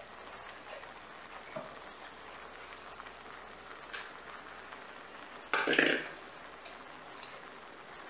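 Thick tomato-and-masala gravy simmering in a nonstick kadai, a soft steady bubbling and spitting. About five and a half seconds in, a short loud burst cuts in for under a second.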